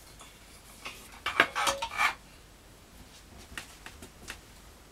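Light metallic clinks and knocks as the Stirling engine's burner is lifted off and set down: a quick run of clinks between one and two seconds in, then a few fainter ones.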